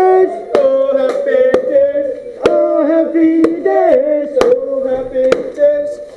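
Intro music: a melodic line of held, bending notes, sung or synthesised, cut by sharp percussive hits at uneven intervals.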